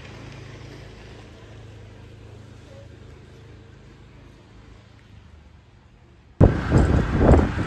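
A faint low outdoor hum, then a sudden switch near the end to loud wind buffeting the microphone, with road noise from a moving vehicle.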